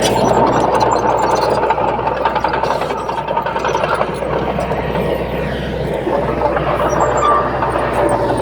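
Heavy diesel earthmoving machinery working steadily, with a continuous whine that shifts lower in pitch about six seconds in.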